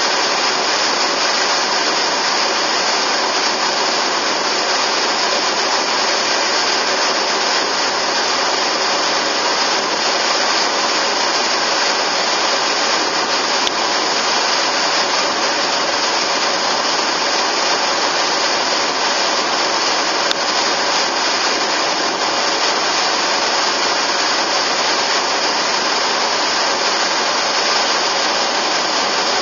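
Steady road noise of a car driving at speed, heard from inside the car: an even rush of tyre and wind noise with no change in pace. Two faint clicks sound in the middle.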